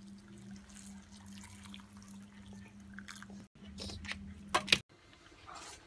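Hot water poured from a kettle into a cup of instant noodles, a faint trickle over a steady low hum. Near the end come a few sharp knocks of the cup being handled.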